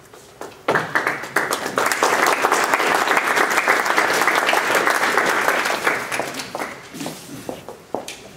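Audience applauding, starting suddenly about a second in, full for several seconds and then thinning out to scattered claps near the end.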